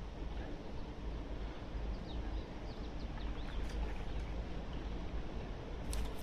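Wind buffeting the microphone as a steady low rumble, with a run of short falling bird chirps about two seconds in and a few sharp clicks near the end.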